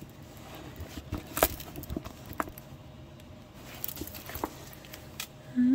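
Scattered soft crinkles and taps from hands handling a diamond painting canvas under its clear plastic cover film.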